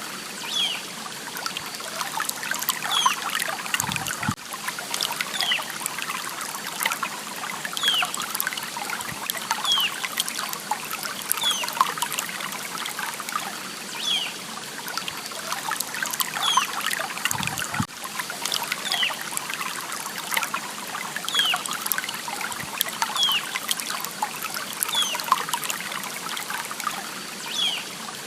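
Stream water trickling and splashing steadily, with a short high chirp that slides downward, repeating every second or two.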